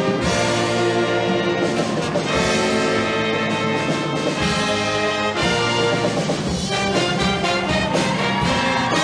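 Live show band playing an instrumental passage with brass, in held chords that change about five seconds in, with no singing.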